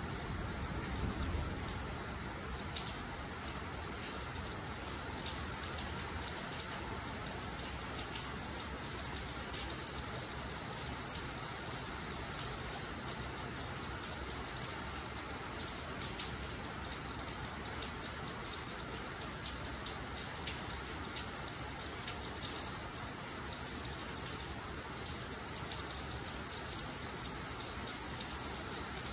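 Steady rain falling in a thunderstorm, even and unbroken, with the last of a thunder rumble dying away about a second in.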